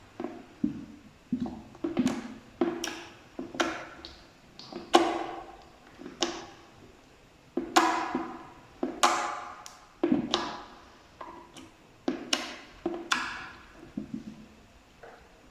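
Slime being squeezed and pressed by hand, giving an irregular run of sharp sticky pops and squelches, about one or two a second, that fade out near the end.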